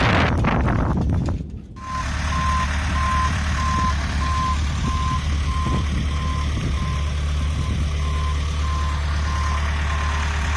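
Wind buffeting the microphone, then, after a sudden cut, a boatyard travel hoist's engine running with its warning beeper sounding a steady series of beeps.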